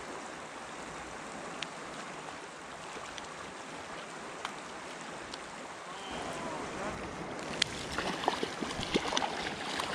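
River water running steadily. From about six seconds in it grows louder, with irregular splashes and sharp clicks close by, as a hooked fish is played and brought in.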